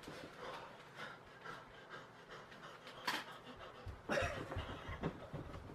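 Two people panting and grunting with effort during a mock sword fight, with a louder vocal outburst just after four seconds in.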